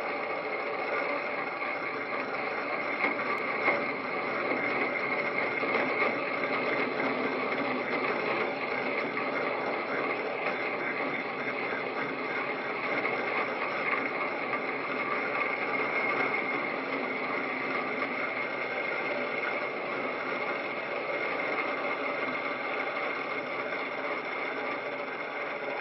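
Electric airplane taxiing: a steady whir from its electric motor and turning propeller. There are a few light knocks around three to six seconds in.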